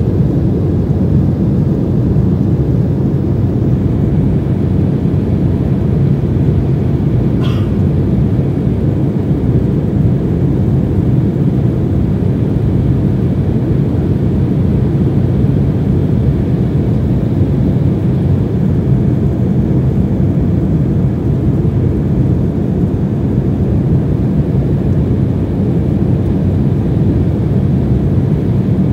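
Steady low drone of jet engines and rushing air inside an airliner cabin in cruise flight, heard from a window seat beside the wing.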